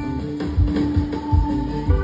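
Live rock band with an electric guitar solo: the guitar holds one long sustained note over bass and regular kick-drum beats, and a higher note comes in about two-thirds of the way through.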